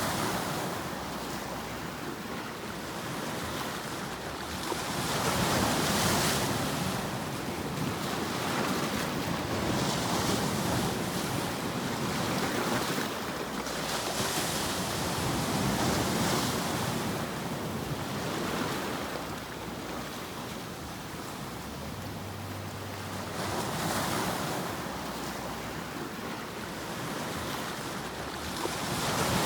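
Ocean surf used as sleep noise: a continuous rushing hiss that swells and ebbs every few seconds as waves wash in and draw back.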